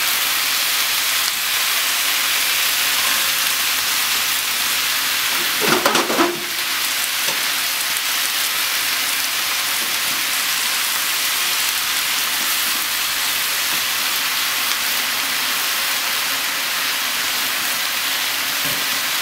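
Eggplant chunks frying in a pan with a steady sizzling hiss. A short clatter sounds about six seconds in.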